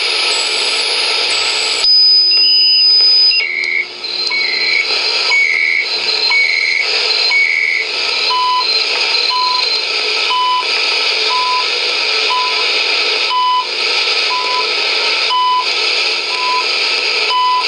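Shortwave reception of the CHU Canada time signal on 14.670 MHz through the HP 8920A's receiver audio, with constant static hiss. For the first several seconds short tones step up and down in pitch as the receiver is tuned. From about halfway they settle into CHU's one-per-second tick, a short beep every second.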